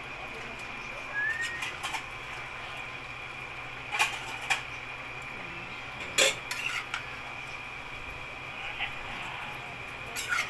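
Metal spatula knocking and scraping against a large coated cooking pan as a heap of bakasi eels is stirred: scattered sharp clinks, the loudest about four and six seconds in.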